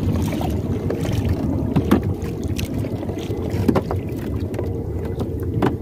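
Small fishing boat rocking on choppy lake water: a steady wash of wind on the microphone and water slapping the hull, with a short knock or splash about every two seconds as the net is worked over the side.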